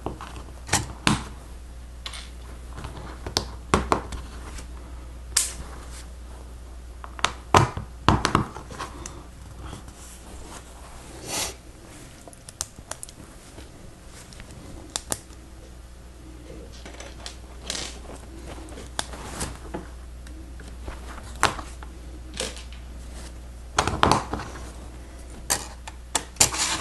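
Plastic Lego Technic pieces clicking and snapping as they are handled and pressed together: scattered, irregular sharp clicks over a low steady hum.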